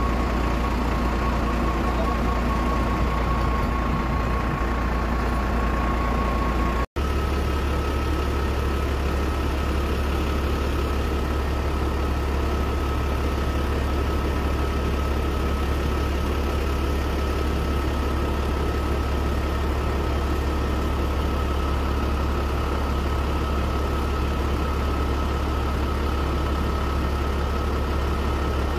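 A steady engine drone with a constant high whine. It drops out for an instant about seven seconds in and resumes with the whine slightly higher in pitch.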